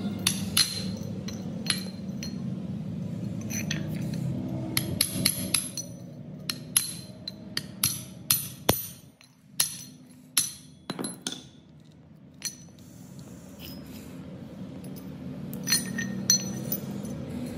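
Metal tools and parts clinking and tapping: irregular sharp strikes with a short ring, over a steady low hum.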